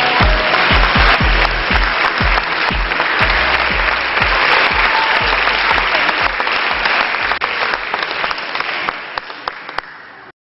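A crowd applauding over pop music with a steady beat. The beat fades out about two-thirds of the way through, the applause thins, and the sound cuts off just before the end.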